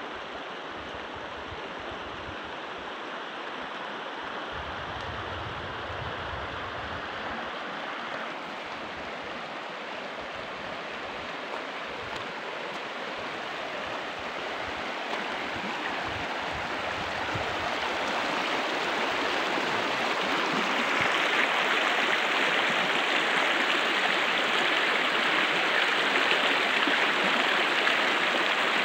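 Shallow river rushing over a stony bed: a steady rush of running water that grows louder about two-thirds of the way through.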